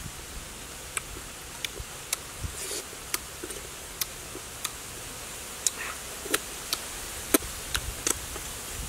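Close-up eating sounds: irregular wet lip smacks and mouth clicks while soft dragon fruit flesh is eaten by hand, over a steady hiss.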